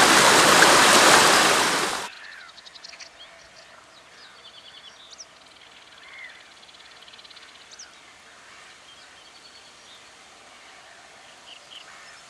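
A loud, steady rushing noise cuts off abruptly about two seconds in. After it come faint calls of birds: quick high ticking trills and short chirps over a quiet outdoor background.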